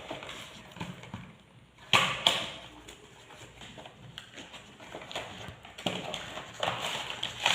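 Retail box of a Bluetooth headset being opened by hand: irregular scraping and ticking of packaging, with two sharp snaps about two seconds in.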